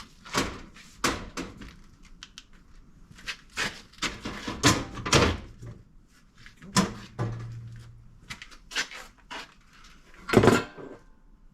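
A series of irregular knocks and clunks, the loudest about ten seconds in, with a brief low hum about seven seconds in.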